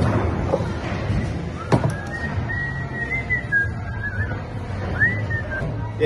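A person whistling a long, slightly wavering note, then a short rising-and-falling one near the end. Just before the whistling starts there is a single sharp knock.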